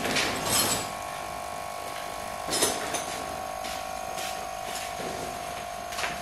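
Tarpaulin rustling as it is gathered up, then a few scattered footsteps in sandals on a concrete floor, over a steady hum.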